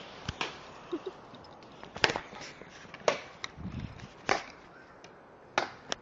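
A handful of sharp clicks and knocks, about seven, irregularly spaced with gaps of a second or so.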